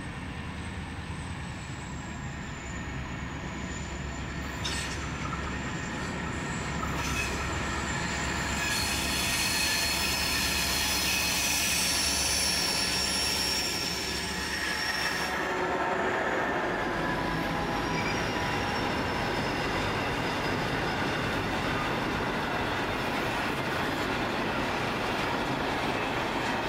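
Two G class diesel-electric locomotives hauling a container freight train approach and pass. Their low engine rumble builds to its loudest as they go by about halfway, with high squealing tones over it. Then the container wagons roll past with steady wheel noise and fainter squeal.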